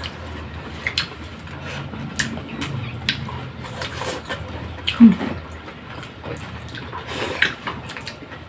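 Close-miked mukbang eating sounds: chewing and slurping of pork sinigang soup and its vegetables, with many small mouth clicks. There is a louder short sound about five seconds in.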